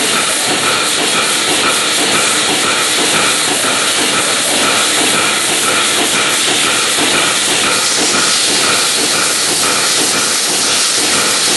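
Milking-parlour machinery running: a steady, loud hiss of air and vacuum with a soft regular pulsing underneath, as from the milking units' pulsation.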